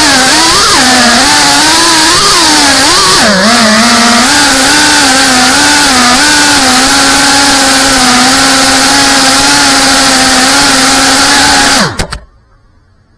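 FPV racing quadcopter's brushless motors and propellers whining loud and close, heard through its onboard camera. The pitch swings up and down for the first few seconds as the throttle is corrected, then holds fairly steady. About twelve seconds in it drops sharply and cuts off as the motors stop on landing. The quad has a broken gyro and flies shaky and unstable.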